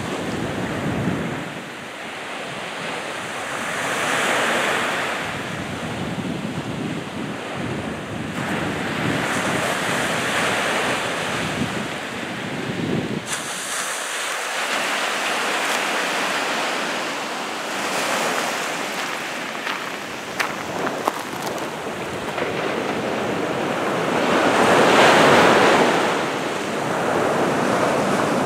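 Small sea waves breaking and washing up a fine shingle beach, the surf swelling and easing every few seconds, loudest near the end.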